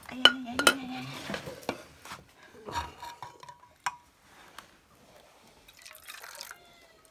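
Dal being ladled out: liquid pouring and dripping, with a few sharp clinks of a metal ladle against pots and plates in the first few seconds.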